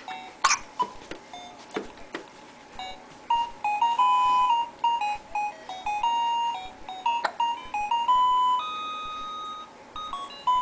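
Electronic floor piano mat played with the feet: single beep-like notes one after another, each held at a steady pitch for a moment, with a few short knocks between steps.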